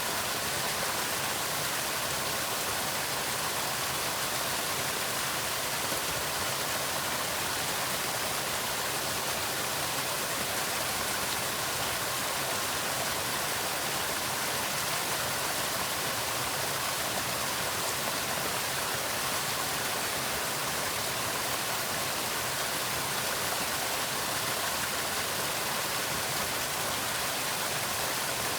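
Small waterfall pouring steadily, an even, unbroken rush of falling water.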